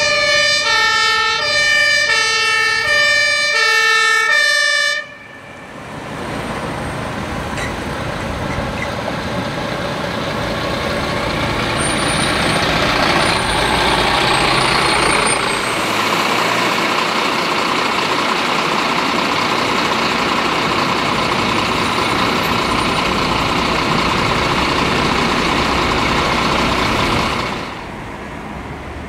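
Electronic two-tone fire-engine siren alternating between two pitches, cut off abruptly about five seconds in. After that, heavy road-traffic noise with a fire truck's engine passing close, building to a peak about halfway through and dropping near the end.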